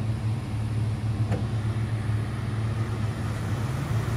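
A truck engine running at a steady, even pitch during a tow-strap recovery pull on a vehicle stuck in sand. There is a faint click about a second in.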